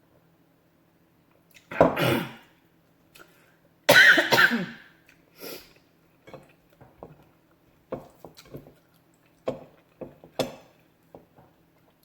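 A person coughs twice, loudly, about two and four seconds in, followed by a series of small clicks and mouth sounds from eating.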